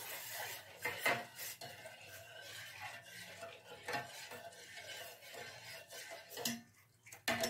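A steel spoon stirring milk, with a few faint scattered clinks and scrapes against the vessel.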